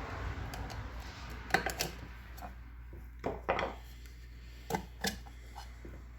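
Scattered clinks and knocks, mostly in pairs, of hands working on a submersible pump motor's opened back cover while pulling out its plastic-rubber cup.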